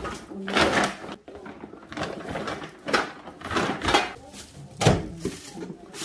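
Large plastic carry bag rustling and crinkling in repeated bursts as gear is packed into it, with a few knocks of the items against each other.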